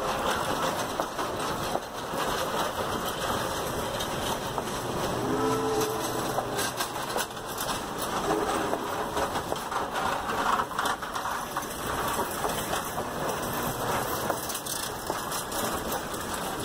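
Passenger coaches of a steam-hauled excursion train rolling past close by: a steady rumble and hiss of steel wheels on rail, with many small clicks and knocks from the trucks. Two short pitched tones sound partway through.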